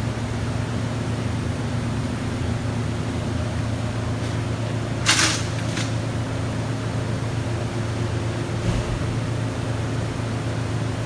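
A steady low machine hum, with a short sharp hiss about five seconds in and fainter ones later.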